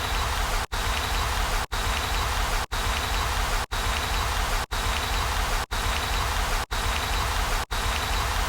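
A steady crackling hiss, rain-like, chopped into one-second pieces by brief silent gaps about once a second.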